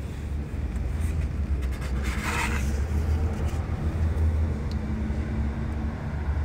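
A steady low rumble, with the brief papery rustle of a magazine page being turned about two seconds in.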